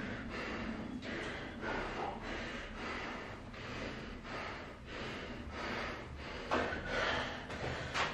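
A man breathing hard and fast, in a steady rhythm: he is out of breath and recovering between sets of burpees. A short tap comes near the end.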